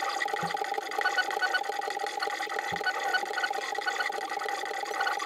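Stepper motors of a Zonestar Z6F 3D printer, converted to a pen plotter, whining as they drive the belt-driven X and Y axes through the pen's drawing strokes, with short tones flicking on and off as the moves change.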